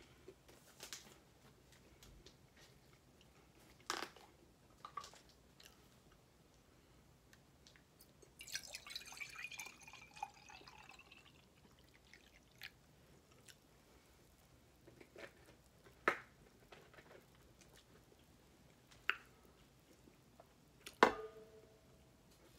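Quiet eating sounds: soft chewing and scattered clicks and taps of utensils and dishes on a foil-covered tray, with a busier stretch of a few seconds near the middle. The loudest sound is a sharp knock with a brief ring near the end.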